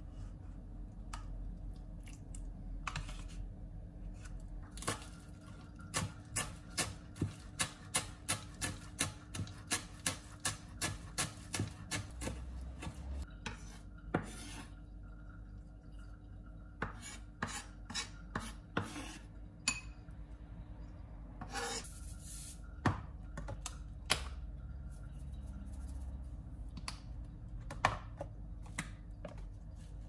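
Kitchen knife chopping fresh herbs on a wooden cutting board: a steady run of knocks at about two to three strokes a second. It is followed by scattered taps and the blade scraping the chopped herbs across the board.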